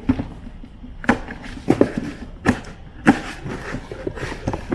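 A cardboard box being opened and unpacked by hand: flaps bending and rustling, with a handful of sharp taps and knocks as the contents are handled.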